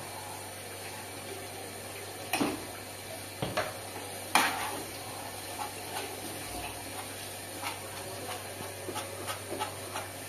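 Meat frying in an aluminium pan with a steady sizzle. A few sharp knocks come a couple of seconds in, the loudest about four seconds in, followed by lighter, quicker clinks and scrapes of a metal spoon stirring against the pan.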